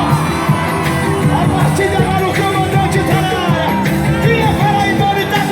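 Live forró band performance over a loud PA: amplified music with a steady beat and singing.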